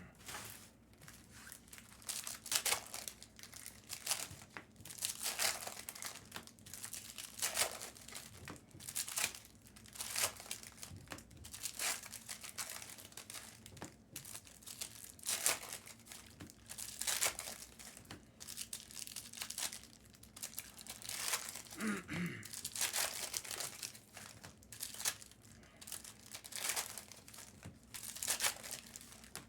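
Foil trading-card pack wrappers being torn open and crinkled by hand, in irregular bursts of rustling.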